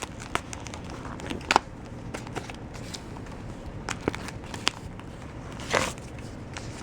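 A wallet and the paper in it being handled: scattered crinkles and small clicks as slips of paper are felt for and pulled out of its pockets.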